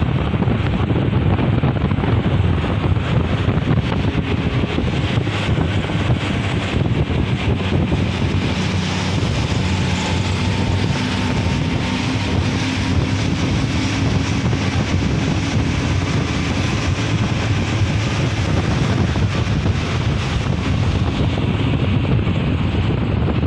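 Steady rushing wind buffeting the phone's microphone from a moving vehicle, mixed with road noise and a faint low engine hum.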